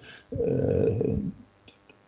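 A man's voice: one drawn-out hesitation sound of about a second, held on a steady pitch, then near silence.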